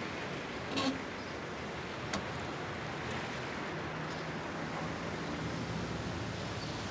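Road traffic noise: a steady hiss of vehicles, with a car engine's low hum coming in about halfway through and two short sharp clicks about one and two seconds in.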